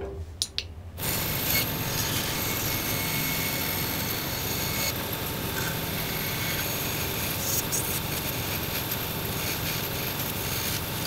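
Bandsaw cutting a curved strip of black MDF: a steady sawing noise that starts about a second in, after two short clicks.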